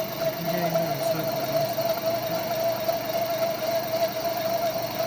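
Metal-working lathe running steadily while plain turning a metal rod, a constant machine hum with a steady mid-pitched whine.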